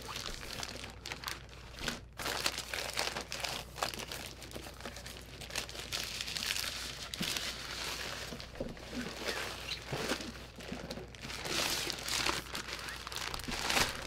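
Plastic packaging bag crinkling and rustling irregularly as it is pulled off and handled during unwrapping.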